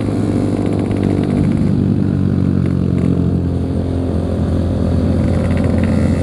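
Yamaha RX King 135cc two-stroke single-cylinder motorcycle engine running under way, its pitch shifting slightly during the first few seconds and then holding steady.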